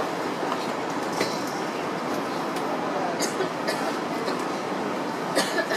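Hong Kong double-decker electric tram noise: a steady rumble with a few sharp metallic clinks, the loudest near the end.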